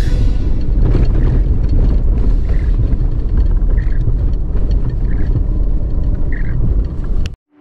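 Four-wheel-drive vehicle driving off-road, a loud steady low rumble of engine and tyres that cuts off suddenly just before the end.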